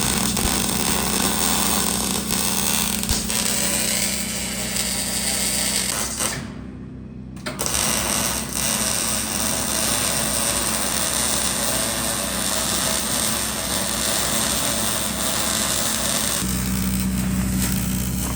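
Electric arc welding on the bunker's inside seam: a steady, dense crackle and sizzle of the arc. It stops for about a second some six seconds in, then restarts and runs on.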